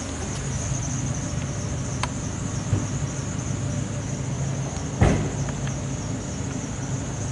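Insects chirring steadily in a high band over a low, steady engine-like hum, with one sharp knock about five seconds in.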